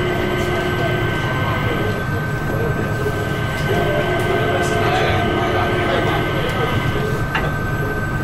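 Changi Airport Skytrain people mover running along its guideway, heard from inside the cabin: a steady low rumble with constant whining tones over it.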